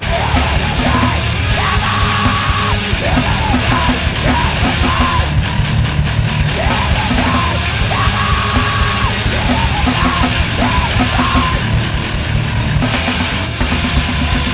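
Screamo band playing at full volume: distorted guitars, heavy drums and screamed vocals, kicking in suddenly at the start.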